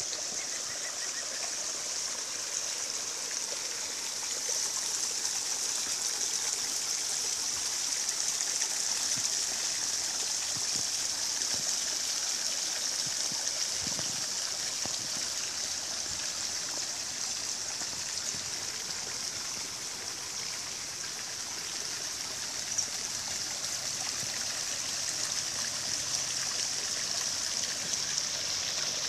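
Flowing water rushing steadily, a bright hiss with no breaks.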